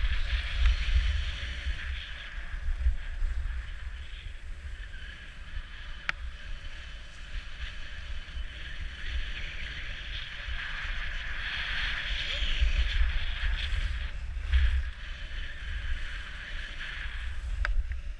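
Skis sliding and scraping over packed snow, a hiss that swells and fades through the run, over a low rumble of wind buffeting the camera's microphone.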